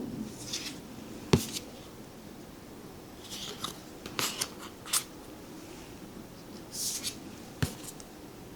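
Tarot cards being handled and looked through: several brief sliding swishes as cards pass over one another, and a couple of sharp taps, one about a second in and one near the end.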